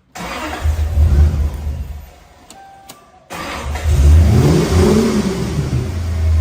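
Toyota 1UZ-FE V8 cranked and catching, running for a couple of seconds before fading; it is started again about three seconds in, revved up and back down on the throttle, then keeps running. The engine struggles to hold an idle on its own because the idle speed control valve has not yet found its position.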